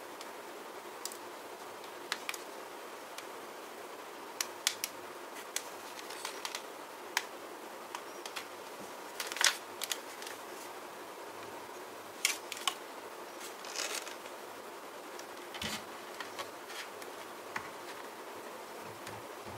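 Irregular sharp clicks, taps and light scrapes of hard plastic parts and packaging being handled during an unboxing, over a steady hiss.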